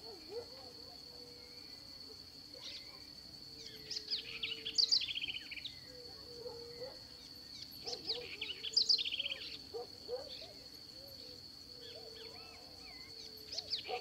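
House wren (corruíra) singing: bubbling phrases of quick rising and falling notes, each ending in a rapid trill, repeated about every four seconds, three times. A steady high whine runs underneath.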